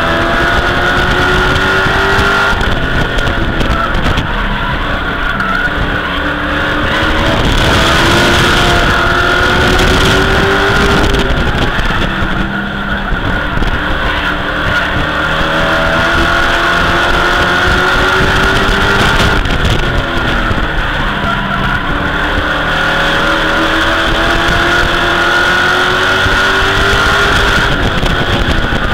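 Race truck's engine heard from inside the cab at racing speed, its pitch climbing four times as it accelerates and dropping back in between, with tyre and road noise underneath.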